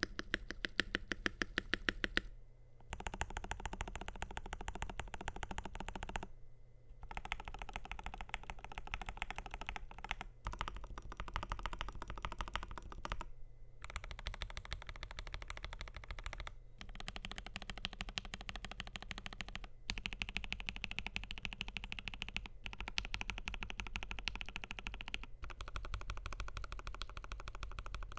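Typing on a FiiO KB3 mechanical keyboard with lubed linear Gateron G Pro 3.0 Yellow switches on a stainless steel plate, with JKDK keycaps. Rapid, dense keystrokes come in runs of a few seconds, each broken by a short pause.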